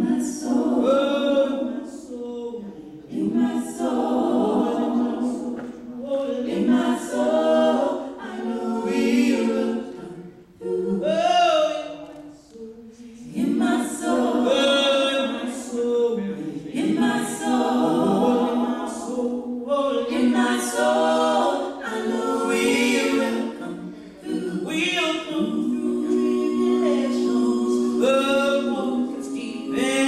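Four women singing a cappella in harmony, several voices at once with no instruments, in phrases with a short pause about halfway through.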